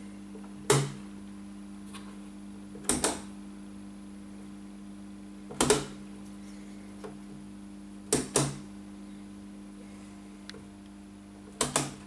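A panel-mounted rotary cam selector switch being turned by hand between positions, each turn giving a sharp snap, mostly as a quick double click, about every two to three seconds, five times in all. A steady low mains hum runs underneath.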